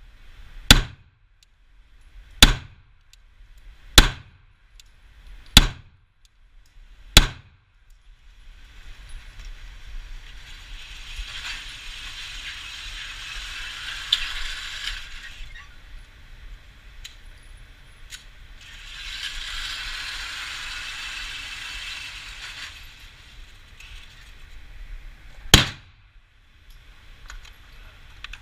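Glock 17 9 mm pistol fired five times at an even pace, about one and a half seconds apart. Then come two long stretches of steady mechanical whirring and one more shot near the end.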